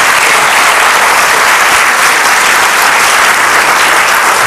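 An auditorium audience applauding steadily, many hands clapping at once.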